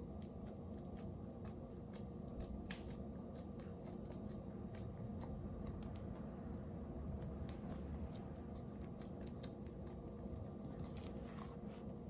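Greasy, stretchy slime being handled, giving a run of small, irregular clicks and pops over a steady low hum.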